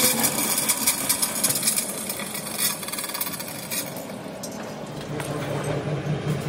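Chain hoist and its hanging chains rattling in a fast, dense clicking as a truck axle housing is lowered onto a stand. The rattle dies away about four seconds in, and a low engine hum builds near the end.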